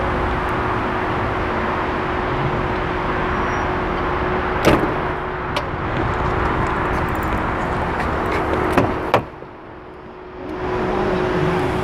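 Steady rushing outdoor noise, like wind on the microphone, with a faint steady hum and a sharp click about halfway through. Near the end a car door's handle and latch click twice as the rear door of the Ford Edge is opened, and the rushing noise drops for about a second.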